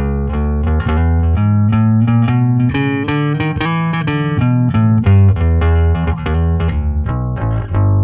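Instrumental intro music with a strong bass line and quick repeated notes.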